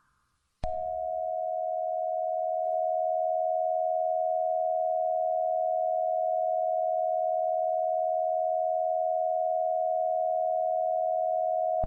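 Emergency Alert System attention tone: a steady electronic alert tone at one pitch. It switches on with a click about half a second in and holds unchanged for about eleven seconds before the spoken warning.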